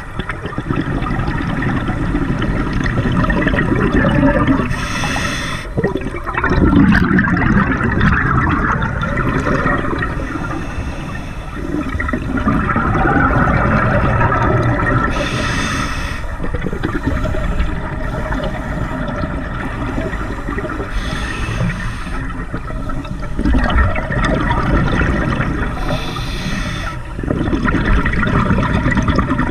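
Scuba diver breathing through a regulator underwater: four short hissing inhales a few seconds apart, each followed by a long burbling rush of exhaled bubbles.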